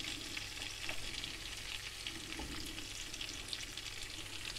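Garlic-and-herb oil and black tiger prawns still sizzling in a frying pan with the gas just turned off: a steady, fairly quiet frying hiss with fine crackles.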